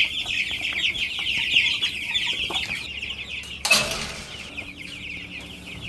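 A brood of baby meat chicks peeping all together, a dense chorus of many quick high peeps, louder in the first part and thinning toward the end. A short rustling burst comes about two-thirds through.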